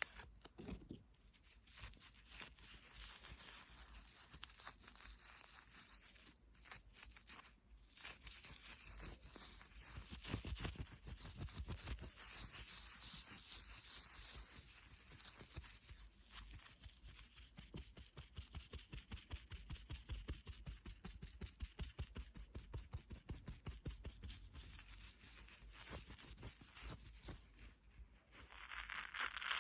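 Rapid light tapping and scratching with the fingers on a small object, many quick strokes a second, the strokes growing more distinct about a third of the way in.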